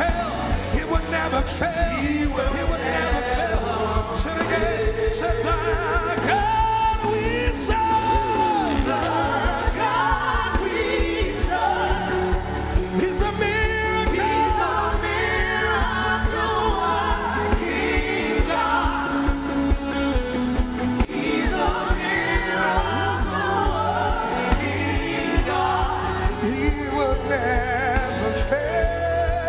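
Live gospel worship music: a sung vocal line over a band with a steady bass and beat.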